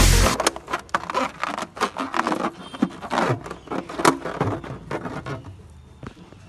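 Music cuts off just after the start. Then come irregular taps, rubs and scrapes as a rubber party balloon is handled and wedged against a bicycle's rear frame beside the spokes, thinning out near the end.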